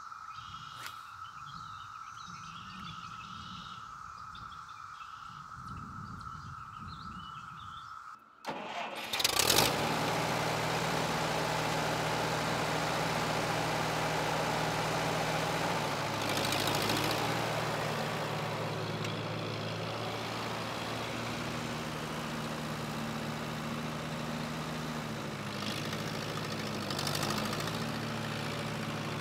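Old Allis-Chalmers loader tractor's engine running, coming in abruptly about a third of the way in and then running steadily, with a slight change in pitch near the end as the tractor drives off. Before that there is only a faint, steady high hum.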